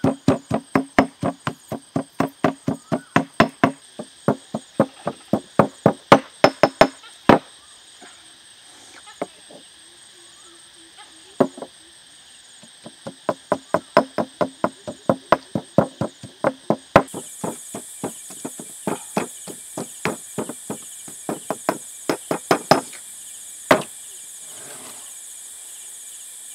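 Fast runs of sharp chopping strikes from a hand tool, about three to four a second, broken by short pauses. A steady high buzz of insects runs underneath and gets louder about two-thirds of the way through.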